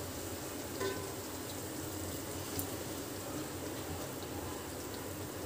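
Faint, steady sizzling and bubbling from a fried ground masala paste in an aluminium pot, just after a little turmeric-salt water was poured in.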